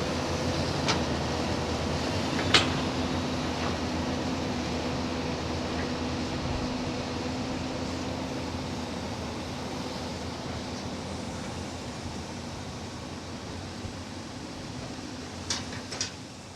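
Excavator engine running steadily with a held pitch, with a few sharp clanks. The engine gradually fades out near the end.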